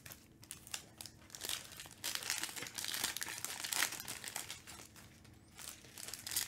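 Foil football trading-card pack wrappers crinkling and tearing as they are handled and ripped open by hand. The crackling comes in bursts with quieter gaps between them.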